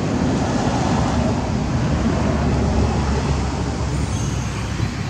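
Steady low rumble with an even hiss over it: continuous outdoor background noise, with no distinct events.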